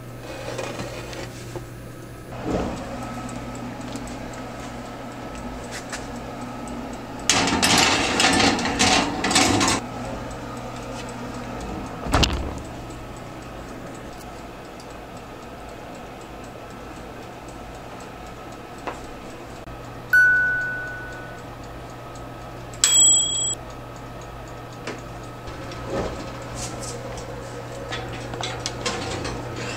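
LG kitchen oven in use: a metal baking tray clattering on the rack as it slides in, the oven door shutting with a sharp knock, then two electronic beeps, and the tray rattling again near the end as it is pulled out, over a steady low hum.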